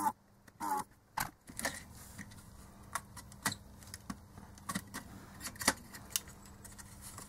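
Light plastic clicks and rattles, scattered a few a second, as a vintage calculator's circuit board and plastic case are handled and worked loose. A couple of short squeaks come in the first second or so.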